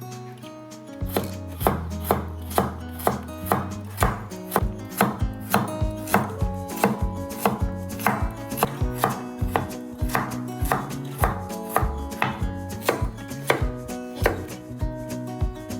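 Knife chopping on a cutting board in steady, even strokes, about two a second, starting about a second in.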